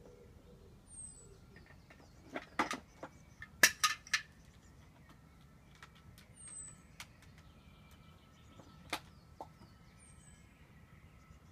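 Hard plastic toys knocking and clinking as a cockatoo rummages through them in a plastic tub with its beak: a quick cluster of sharp clicks a couple of seconds in, then one more knock later. A faint, short, high falling chirp comes three times, about every four seconds.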